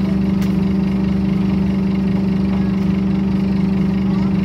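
Diesel engine of a Scania N230UD double-decker bus idling, heard from inside the lower deck as a steady, unchanging low drone.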